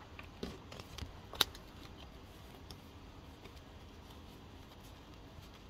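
Tarot cards being handled as they are drawn and fanned: a few light card clicks and slides in the first second and a half, the sharpest about a second and a half in, then only faint room hiss.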